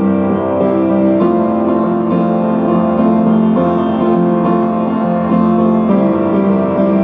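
Piano or keyboard playing sustained chords that change every second or so, the short instrumental break of a worship song.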